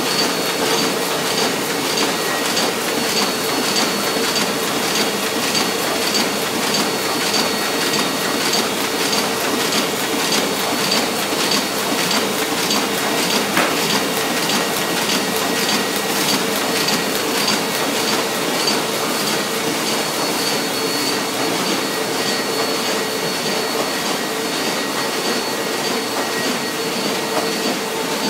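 MAN Roland 200 sheet-fed offset printing press running at speed, feeding and printing sheets: a steady mechanical running noise with a fast, regular clacking beat and a steady hum.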